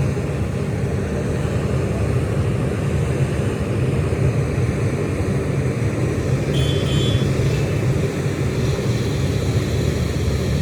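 Heavy diesel engines of a mud-stuck Ashok Leyland tipper truck and a JCB excavator running steadily under load during the recovery effort to free the truck.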